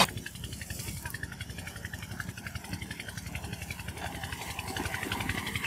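Massey Ferguson tractor diesel engines idling, a steady fast low pulse.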